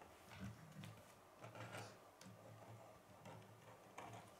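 Near silence, with a few faint clicks of small plastic Lego parts as the mini helicopter model is handled and its rotor turned.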